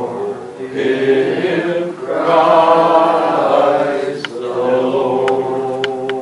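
Church congregation singing a hymn together in long, held notes, phrase by phrase, with a few faint clicks near the end.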